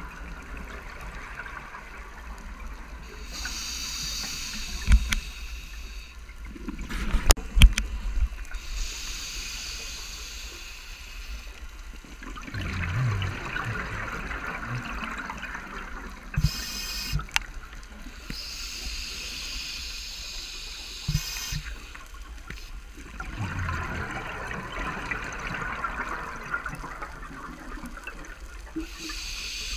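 A scuba diver breathing through a regulator underwater: slow hissing inhalations alternate with gurgling bursts of exhaled bubbles, a few breaths in all. A few sharp knocks sound about five to eight seconds in.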